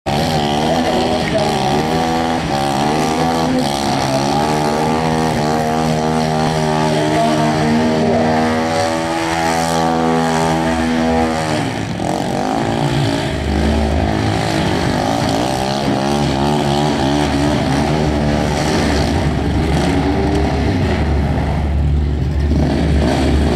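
Road-trail motorcycle engine revving hard through a burnout, its rear tyre spinning on the tarmac. The revs rise and waver, drop sharply about halfway through, then pick up again at a lower, heavier pitch.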